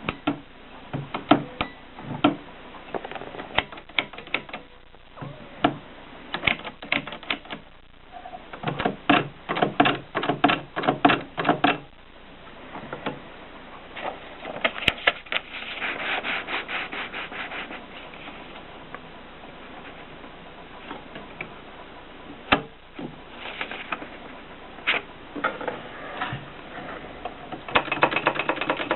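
AEG Mignon 4 index typewriter being worked, giving sharp mechanical clicks. Some come singly and some in quick runs of about five a second, and there is a denser stretch of clatter midway.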